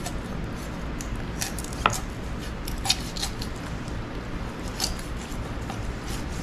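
Chef's knife cutting the thigh off a whole raw chicken on a plastic cutting board: soft slicing and handling of the raw meat with a few sharp clicks, the loudest about two seconds in.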